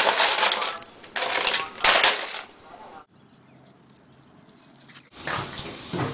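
Ice cubes clattering against each other and a plastic tub in three short bursts as a small dog roots through them with its snout.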